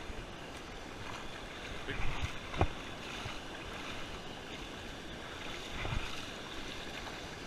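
River water rushing over a small rocky cascade, a steady wash of noise, with a few short knocks about two to two and a half seconds in.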